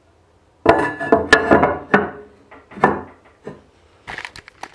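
Porcelain toilet tank lid being set back onto the tank: a quick series of loud clattering knocks with a ringing tone, followed by a couple of lighter knocks.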